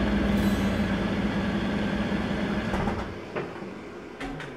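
A steady low hum over a hiss, dropping away about three seconds in, with a few faint clicks near the end.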